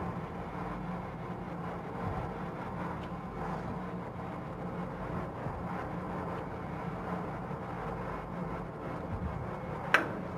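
Steady low mechanical hum and even background noise of a kitchen, with one sharp click near the end.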